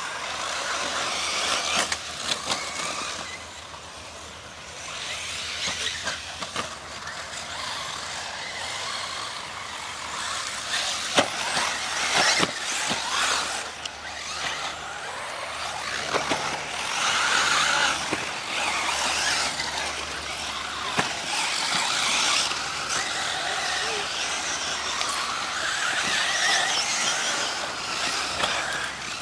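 Several 1/8-scale electric RC buggies racing on a dirt track: a high rushing noise of motors and tires on dirt that swells and fades as the cars pass, with a few sharp clicks.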